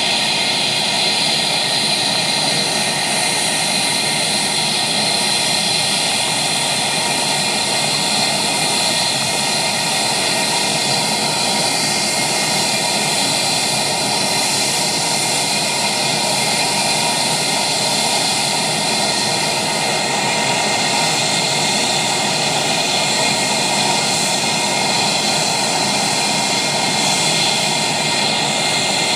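Airbus A320 jet engines running at a steady, unchanging level: a constant rush with a high whine.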